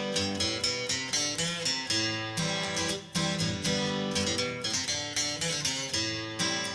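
Background music: acoustic guitar playing a steady rhythm of plucked and strummed notes.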